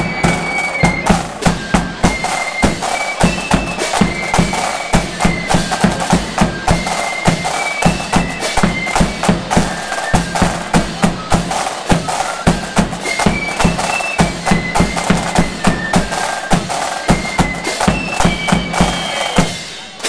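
Loyalist flute band playing a march: flutes carrying a high melody over snare drums, a bass drum beating a steady pulse and clashing hand cymbals. The tune stops just before the end on a final drum stroke.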